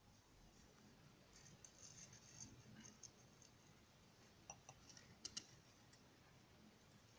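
Near silence: faint background hiss with a few soft ticks about halfway through.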